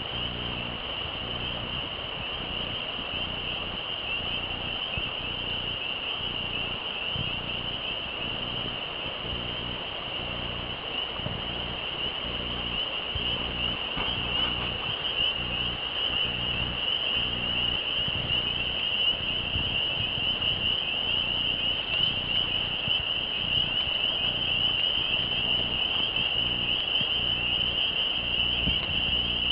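A steady chorus of crickets: a continuous high, shrill trilling that gets slightly louder in the second half, over a low rumble.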